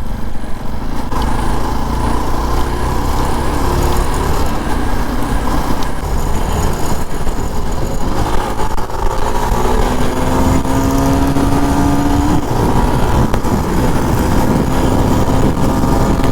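Motor vehicles on the move: a steady low rumble with engine notes slowly rising in pitch as a vehicle accelerates, most clearly from about ten to twelve seconds in.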